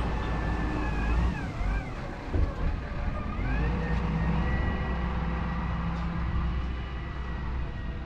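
Wheel loader's diesel engine running under load with a heavy rumble, plus a high whine that rises and falls in pitch and then holds steady. A single clunk comes about two and a half seconds in.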